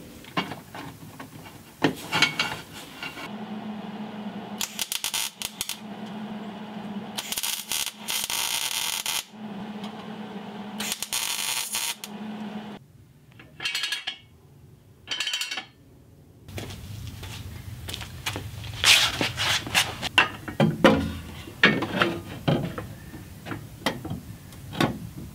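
MIG welder tack-welding the exhaust pipe: three crackling bursts of one to two seconds each, then two short ones. Metal clanks and taps come before and after.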